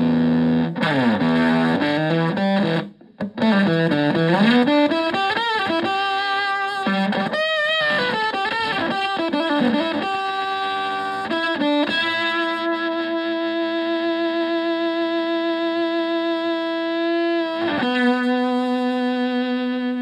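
Stratocaster played through a Vox Tone Bender–style fuzz pedal into a Twin Reverb–style amp: fuzzed electric guitar with sliding string bends and wide vibrato, cutting out briefly near the start. It then holds one long note for several seconds, bends away and settles on another sustained note.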